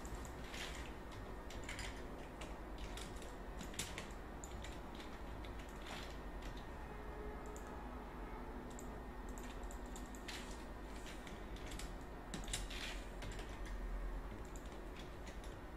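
Irregular clicks of a computer keyboard and mouse, some single, some in quick runs, over a faint low steady hum.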